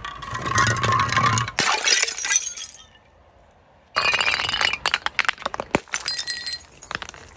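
A bottle rolling and clattering down concrete steps, then, after a short gap, a soda bottle smashing on the steps with a sudden burst of clinking shards and fizzing that dies away over a few seconds.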